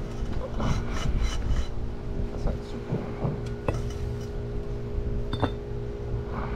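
Rubbing and scraping of a pipe and a concrete paver being pressed and slid over a loose gravel-and-sand paver base, with a few sharp scrapes and clicks, over a steady low hum.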